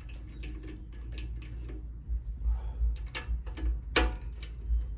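Small metallic clicks and ticks of a hand tool and bolt being worked at a motorcycle's handlebar riser clamp, with two sharper clicks about three and four seconds in, over a low steady hum.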